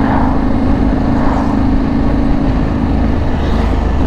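Yamaha Ténéré 700's parallel-twin engine running at a steady highway cruise, with wind noise rushing over the microphone.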